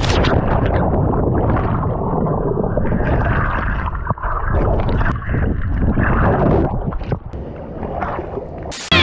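Muffled gurgling and churning of water heard through a camera plunged into the sea after a cliff jump, dull and with no treble. Music cuts in near the end.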